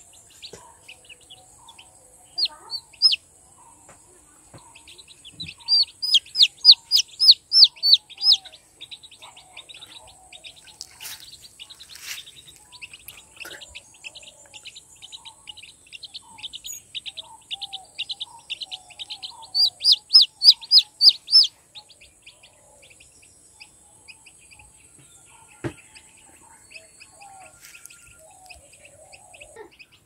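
Red junglefowl chicks peeping: two bouts of loud, rapid high-pitched peeps, about four a second, about a fifth of the way in and again about two-thirds through, with softer peeping between. A steady high-pitched whine runs underneath and stops near the end.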